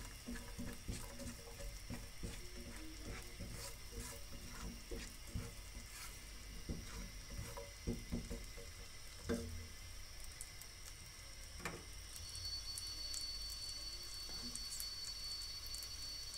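Garlic cloves frying in butter in a pan: a faint, steady sizzle peppered with small pops and crackles, with a few louder clicks along the way.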